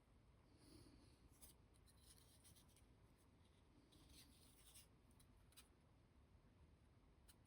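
Faint, intermittent light scratching strokes of small hand-tool work on a hobby cutting board.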